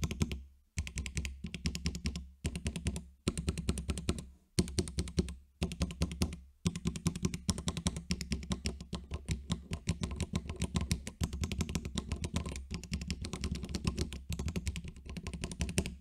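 Akko Cream Yellow linear mechanical switches and keycaps on a caseless, hand-built nine-key macro pad clacking as the keys are pressed rapidly, in quick runs of clicks broken by several brief pauses.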